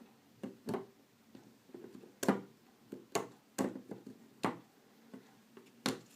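A series of sharp, irregularly spaced clicks and taps, about seven in all, the loudest a little over two seconds in.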